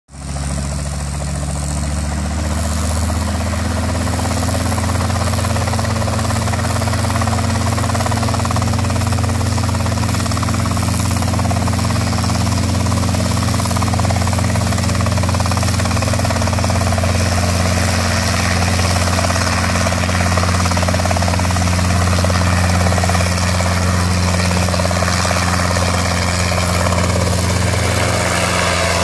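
Small helicopter with a two-blade main rotor running loud and steady on the ground, then lifting off and climbing in the last part.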